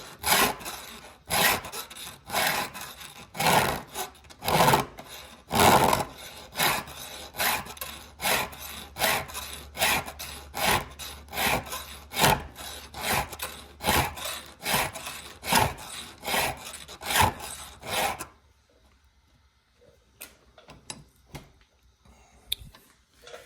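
Chainsaw file rasping back and forth across the steel cutter of a saw chain in even strokes, about one and a half to two a second, stopping near the end with a few faint clicks. The cutter is being filed to deepen the gullet and give it more hook.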